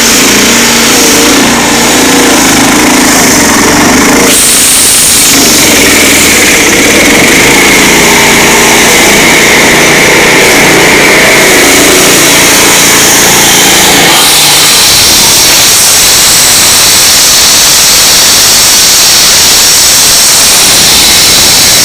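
Heavy road-construction machinery engines running, very loud and steady, with the sound shifting abruptly about four seconds in and again around fourteen seconds in.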